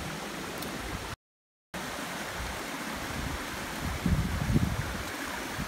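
Steady rushing of a nearby stream, with a brief dropout to silence about a second in and a few low rumbles near the end.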